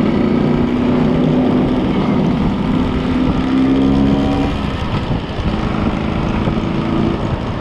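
Vintage Vespa scooter's single-cylinder two-stroke engine running under way. Its note climbs slightly, then eases off about five seconds in.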